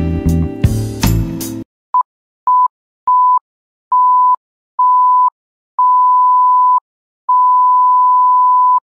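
Background music stops about one and a half seconds in. Then a countdown timer beeps seven times at one steady high pitch, each beep longer than the one before, ending in a long tone as time runs out.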